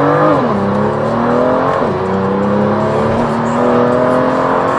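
BMW M2's turbocharged straight-six through a Fi Exhaust valvetronic catback, heard from inside the cabin under hard acceleration. The revs climb and fall sharply with an upshift about half a second in, fall again with another upshift about two seconds in, then climb steadily through the next gear.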